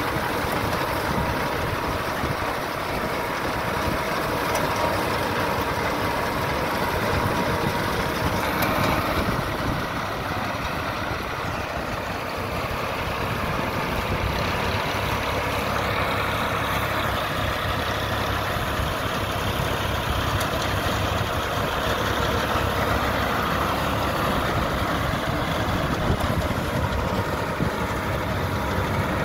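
Tractor engine running steadily under load, driving a PTO-driven Yapel DG-140 reaper-binder whose cutter bar and binding mechanism clatter continuously as it cuts wheat.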